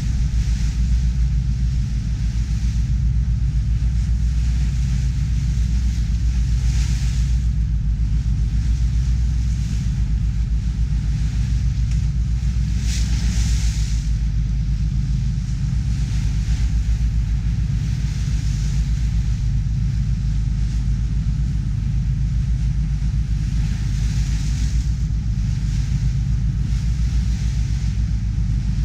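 Ferry boat's engine running with a steady low drone as it crosses open sea, over a hiss of rushing water and wind that swells briefly about four times.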